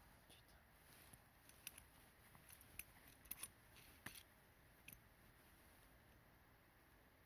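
Near silence broken by a handful of faint, sharp metallic clicks, mostly in the middle: small metal tools and a cut piece of copper brake line being handled at the bench.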